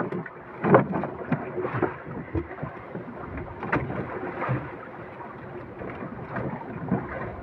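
Wind buffeting the microphone and water slapping against the hull of a small fishing boat as it rocks at sea, with scattered irregular knocks and bumps from handling on board.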